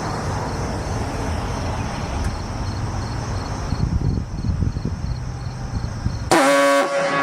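Steady low, noisy rumble, then near the end a loud vehicle horn blast with a rich, buzzy tone that dips briefly in pitch as it starts and holds for under a second.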